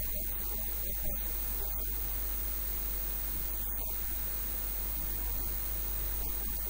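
Steady electrical mains hum with hiss.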